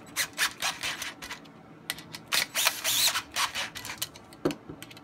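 Irregular metallic clicks and rattles of hand tools on a sight pusher, its clamp screw being tightened down on the pistol slide, densest about halfway through.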